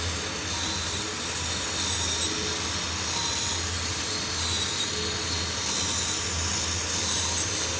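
Miniature diesel OHV engine model running steadily: a continuous mechanical whirring buzz over a low hum, with no change in speed.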